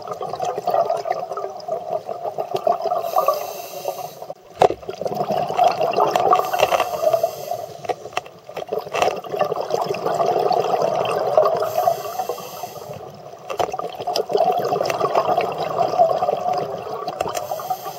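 Scuba diver's breathing through a regulator, recorded underwater: long runs of exhaled bubbles gurgling, with a short hiss of inhalation between them, repeating every four to five seconds.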